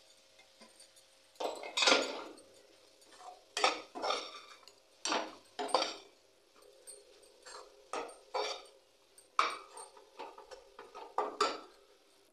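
A spatula scraping and clinking against a kadhai as a mashed pea filling is stirred, about a dozen irregular strokes roughly once a second, the loudest about two seconds in.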